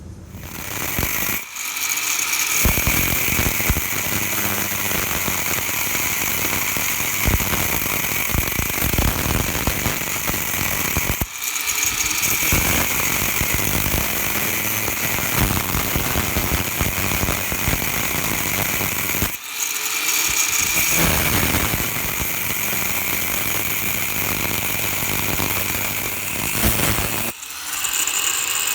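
Electric grinder grinding a steel piece down to fit an anvil's hardy hole, running steadily with a few short breaks where it comes off the work.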